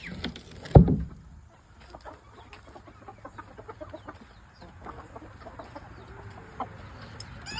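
Chickens clucking softly amid many small faint ticks, with one sharp knock about a second in.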